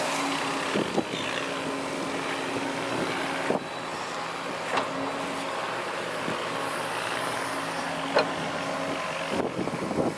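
Diesel earthmoving machinery running steadily, with a few short sharp clanks, the loudest about eight seconds in.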